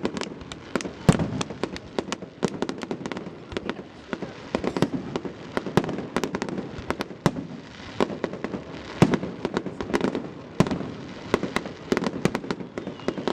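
Fireworks finale: a rapid, unbroken barrage of shell bursts and crackling reports, several bangs a second, with the loudest booms standing out about a second in, around nine and around ten and a half seconds in.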